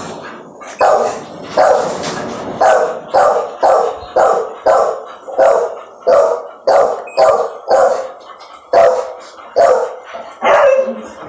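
A dog barking over and over, roughly two barks a second.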